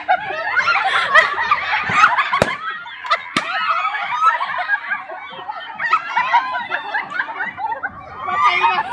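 Many women's voices laughing loudly at once, with two sharp bangs of balloons bursting, about two and a half and three and a half seconds in.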